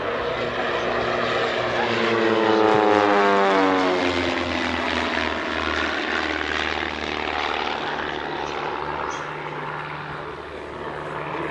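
Two Pitts Special aerobatic biplanes flying past in formation, their engines and propellers loudest a few seconds in and dropping in pitch as they pass, then settling to a lower, fading drone.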